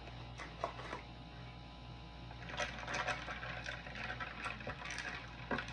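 Bourbon-and-Coke mix being stirred in a cup, a run of quick clicking and rattling that starts about halfway through.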